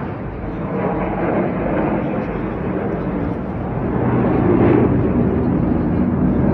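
Jet engine noise from the Black Eagles' T-50B jet trainers flying overhead, a steady rumble that grows louder about four seconds in as the aircraft come closer.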